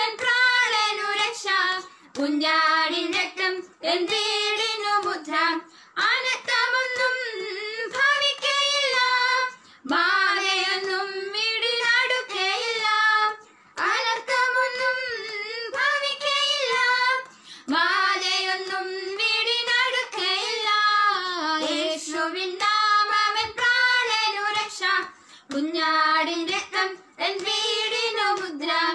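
Two women singing a Malayalam Christian worship song together, unaccompanied, in phrases of a few seconds with short breaks for breath.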